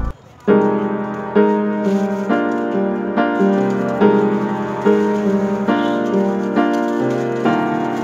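Background piano music: slow, evenly struck notes about once or twice a second, beginning after a brief gap about half a second in.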